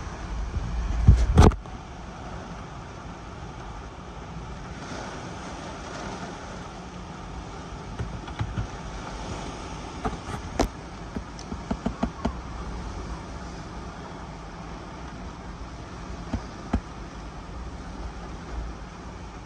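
Hurricane Ian's wind rushing steadily around a car, heard from inside the cabin, with a loud buffeting gust about a second in. Scattered sharp knocks and taps follow, a cluster in the middle and two more later.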